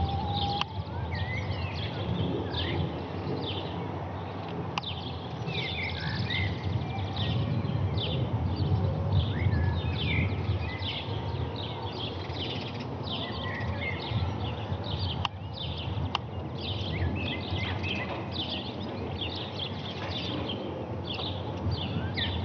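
Many small songbirds chirping and twittering in quick short notes, over a steady low rumble.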